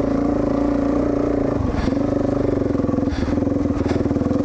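Motorcycle engine running at a fairly steady speed while riding on a trail, easing off briefly a little under two seconds in and again about three seconds in.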